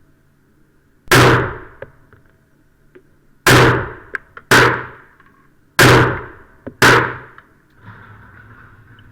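Sig Sauer 1911 Scorpion .45 ACP pistol firing five single shots, unevenly spaced, the first about a second in and the last about two-thirds of the way through.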